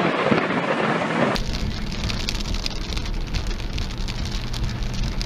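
Steady rain. About a second in it changes to rain on a car's windshield heard from inside a moving car, over a steady low rumble of the car on the wet road.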